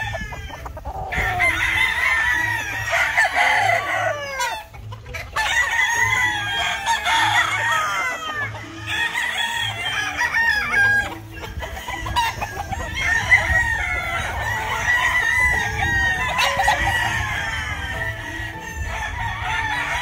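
Many gamefowl roosters crowing over one another, the calls overlapping almost without a break, with a few short lulls.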